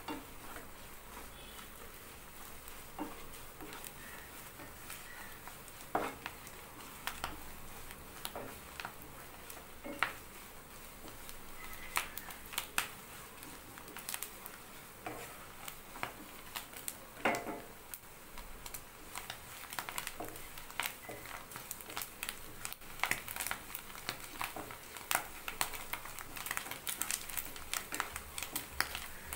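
Wooden spatula stirring and scraping food frying in oil in a nonstick pan: a faint steady sizzle under irregular clicks and scrapes of the spatula, which come more often in the second half.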